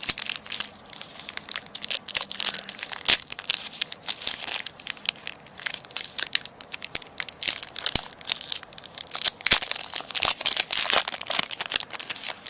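Foil wrapper of a Magic: The Gathering booster pack crinkling and crackling as it is torn open and handled, a dense run of sharp crackles that stops just before the end.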